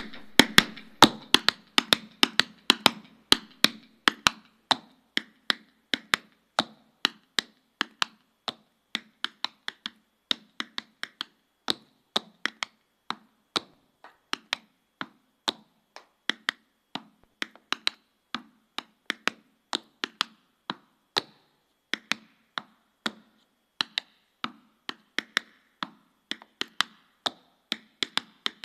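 Unaccompanied tap dancing: the metal taps of tap shoes striking a board in quick rhythmic runs of sharp clicks, broken by short pauses.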